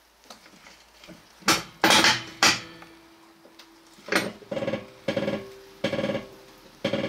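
Metal struck against metal: three sharp knocks, then from a little past halfway a run of clanks about two a second, each ringing briefly.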